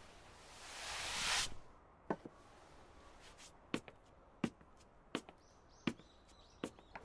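A blackboard eraser wiped across a chalkboard, a swelling swish that stops about a second and a half in. Then footsteps on a classroom floor follow, one sharp step about every 0.7 seconds.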